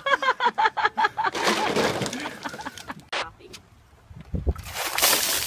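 Rapid laughter in short bursts, then about four and a half seconds in, ice water pouring out of a bucket and splashing down loudly onto a person.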